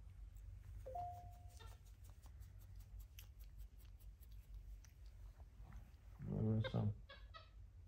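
Pet monkeys grooming a man's face, with soft clicking and smacking as they pick and mouth at his skin, and a short high squeak about a second in. About six seconds in comes the loudest sound, a brief low grunt from the man.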